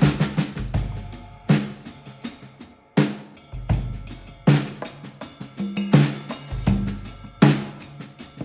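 Background music: a slow, steady drum beat with kick and snare hits about every second and a half.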